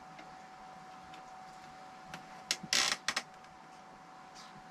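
A short clatter of things being handled and set down: a few sharp clicks and one brief rasping scrape, about halfway through, over a faint steady hum.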